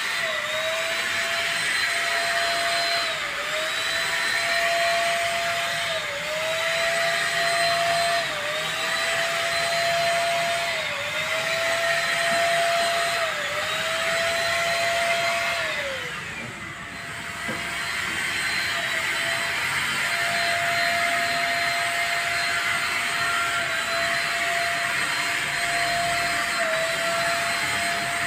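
Multipro ESP-800JY electric paint spray gun running while spraying wall paint, a steady motor whine with a hiss of spray. Its pitch dips briefly every two to three seconds. About sixteen seconds in it winds down and cuts out, then starts again a second or two later.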